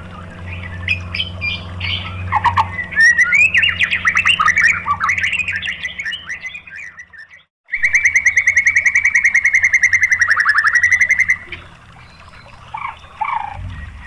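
White-rumped shama singing: a run of varied whistles and chirps, a brief break just past halfway, then a loud rapid trill of quickly repeated notes lasting about four seconds, followed by softer chirps. A low steady hum sits underneath.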